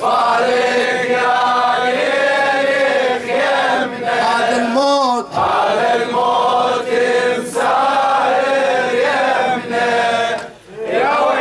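A congregation of men chanting the refrain of an Ashura lament (latmiya) together in unison, answering the reciter. They pause briefly twice.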